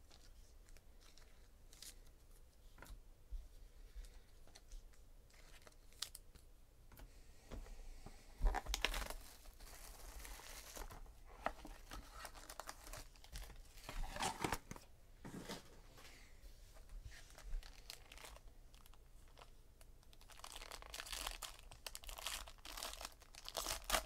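A trading card box being opened and its foil-wrapped card pack torn open by hand: small scattered clicks and taps at first, a burst of crinkling and tearing about nine seconds in, and more foil crinkling and tearing near the end.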